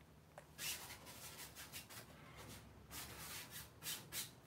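Faint, scratchy swipes of a paintbrush dragged across a stretched canvas, several separate strokes as sketch lines are laid in with paint thinned in linseed oil.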